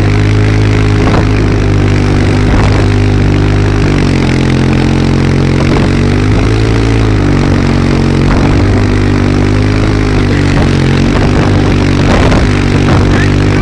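Quad bike engine running steadily while towing, its pitch dropping a little about four seconds in and rising and falling again a few seconds later, over a steady rushing hiss.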